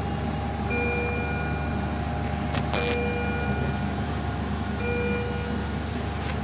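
An ICU medical alarm beeping: a short electronic multi-tone beep three times, about every two seconds, over a steady low hum. A couple of clicks sound about two and a half seconds in.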